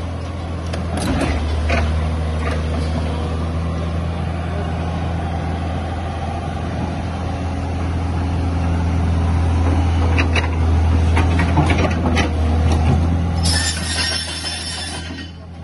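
Tata Hitachi crawler excavator's diesel engine running under load, a steady low drone, as the boom and bucket swing and the tracks shift, with a few metallic knocks. A loud hiss comes in near the end.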